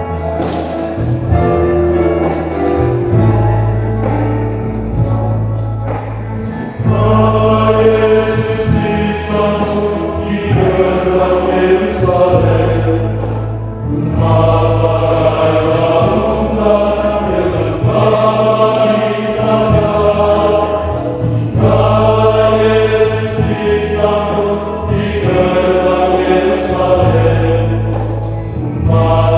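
Male choir singing a hymn in harmony over instrumental accompaniment that holds long low notes. It starts softer and swells louder about seven seconds in, then rises and falls phrase by phrase.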